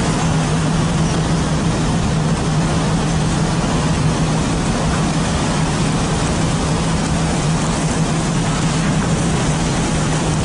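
Fishing boat's engine running steadily: a constant low hum under an even rush of noise, with no change in the engine.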